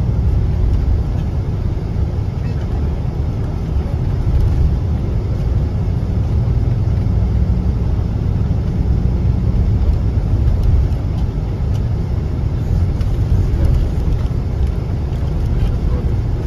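Steady low rumble of engine and road noise inside the cabin of a moving vehicle.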